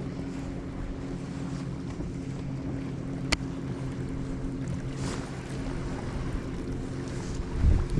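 Steady electric hum of a bass boat's trolling motor, with a single sharp click about three seconds in. Wind buffets the microphone near the end.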